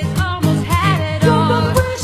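A woman singing a pop ballad through a microphone, accompanied by a strummed acoustic guitar keeping a steady rhythm; her held notes waver with vibrato.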